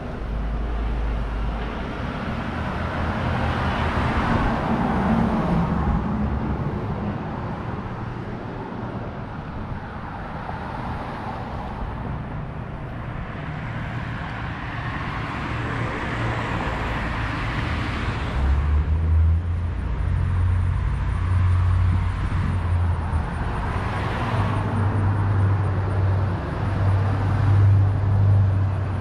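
Street traffic: cars passing by one after another, each swelling and fading, with a low rumble setting in about two-thirds of the way through.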